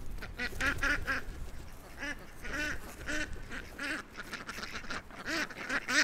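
A flock of domestic ducks quacking in alarm, a string of short quacks again and again, louder near the end, as they scatter from a chasing puppy.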